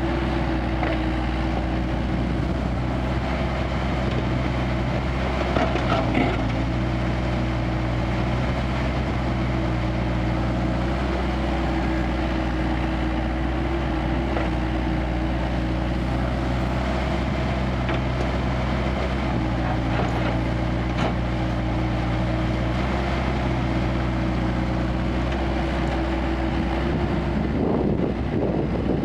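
Kubota KX161-3 mini excavator's diesel engine running at a steady pitch while it works, with a few sharp knocks about six seconds in. Near the end the steady engine tone gives way to a rougher, noisier sound.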